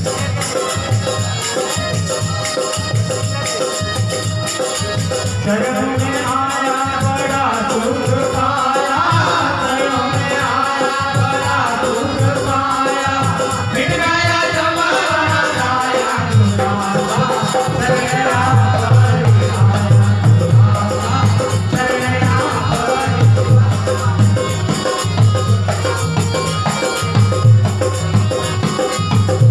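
Live Indian folk music from a small ensemble of harmonium, a long-necked string instrument and hand drums, with a steady percussive beat. A man sings from about five seconds in until about seventeen seconds. After that the instruments carry on, with the drum strokes more prominent.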